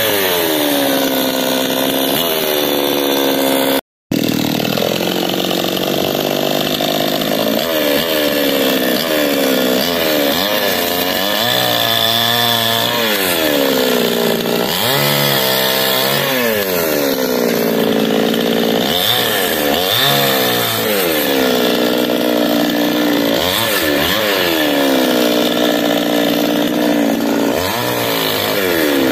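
Two-stroke gasoline chainsaw running at high revs and cutting wood. Its engine pitch sags as the chain bites and climbs back between cuts, over and over. The sound drops out very briefly about four seconds in.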